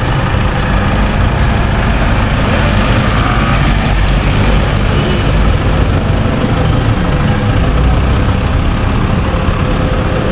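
Street traffic: motor vehicle engines running steadily with a heavy low rumble.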